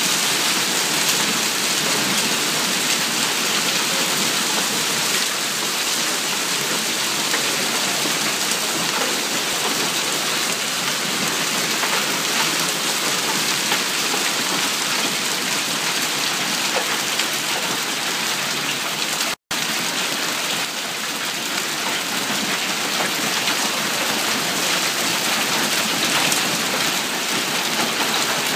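Heavy hail falling steadily: a dense, unbroken clatter of countless small hailstones hitting the ground and plants. The sound cuts out completely for an instant about two-thirds of the way through.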